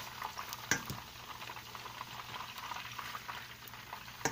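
Hot frying oil crackling and sizzling after fried red snapper, with metal tongs clacking sharply against a stainless steel colander about a second in and again near the end.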